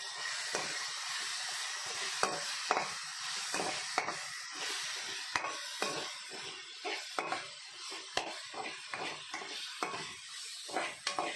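Chopped tomatoes, onion and coriander sizzling in hot oil in a metal kadai, with a steady hiss, while a metal spoon stirs them, scraping and clinking against the pan many times, more often in the second half.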